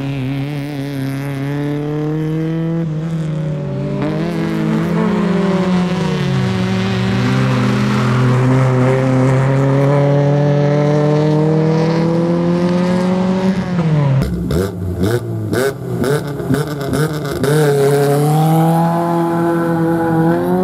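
A small hatchback race car's engine revving hard through a slalom course, its pitch climbing steadily with short lifts about 4 and 6 seconds in. About 14 seconds in, the engine note breaks into short on-off throttle bursts, then pulls and climbs steadily again.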